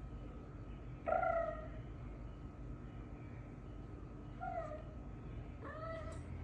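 A cat making three short meowing 'kroo' calls, the first about a second in and the loudest, a shorter one later, and one near the end that rises and then holds.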